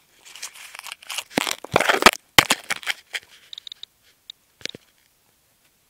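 Handling noise from an iPod nano recorder being set in place. A crinkly white plastic-like sheet rustles and crackles right against its microphone, heaviest in the first three seconds, then a few separate clicks and taps.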